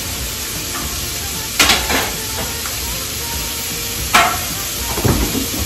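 Sausage patties sizzling steadily on an electric griddle. Two sharp knocks come about a second and a half and about four seconds in, and a duller thump comes near the end.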